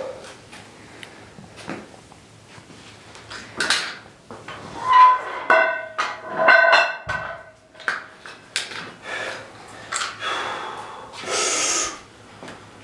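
A man strains, groaning and breathing out hard, while forcing a padded steel horseshoe into a braced bend. There are short strained groans in the middle and a long forceful exhale near the end.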